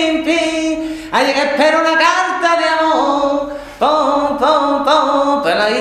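A man singing unaccompanied, in phrases of long held notes with brief breaks about a second in and again near four seconds.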